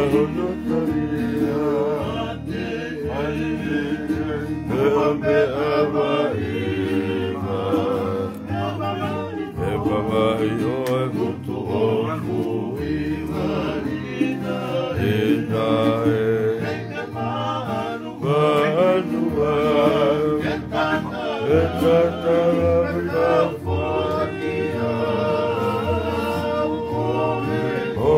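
A group of men singing a Tongan song in harmony, with several strummed acoustic guitars.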